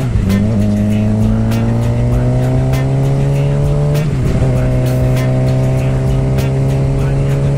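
Suzuki GSX-R sport bike's inline-four engine running under way. Its pitch drops as it shifts up at the start, then climbs slowly through the gear, and the engine note dips briefly about four seconds in before running on steadily.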